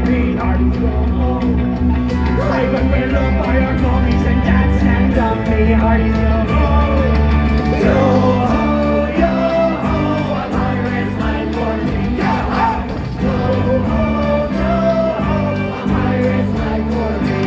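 Live rock band playing an upbeat song, with a lead singer over electric guitar, bass and a steady beat.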